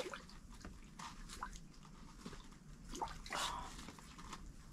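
Quiet, with faint scattered clicks and a short rustle about three and a half seconds in: small handling noises of fishing gear and clothing.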